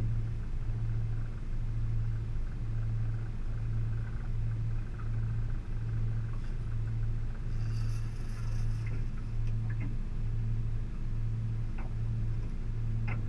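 Boat's outboard motor running at idle: a steady low hum that pulses about twice a second. A brief hiss sounds about eight seconds in.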